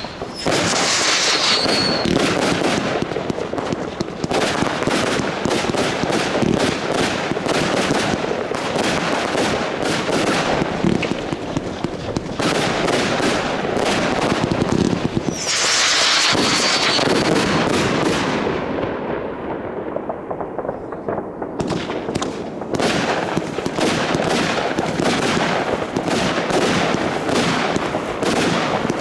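New Year's Eve consumer fireworks going off without a break: rapid volleys of bangs and crackling, with two brief high hissing stretches, one near the start and one about halfway through.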